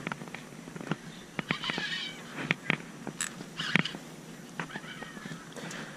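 Scattered clicks and small splashes as a hooked fish is reeled in beside the boat.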